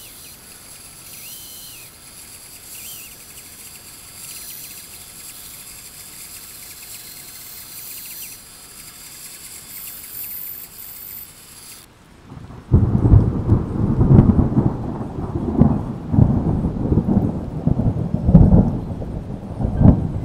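A faint, steady, high whir, plausibly the bandsaw cutting the plastic lure lip. About twelve seconds in it gives way to a loud, low storm rumble that surges and rolls again and again until the end.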